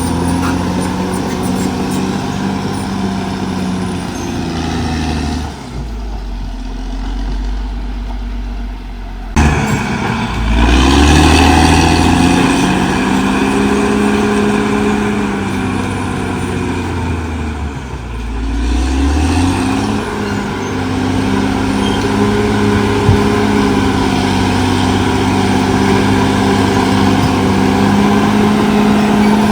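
CAT D6R XL bulldozer's diesel engine running hard. Its note sinks low twice, about six seconds in and again near eighteen seconds, picking back up sharply about nine seconds in and again near twenty seconds, then runs steady.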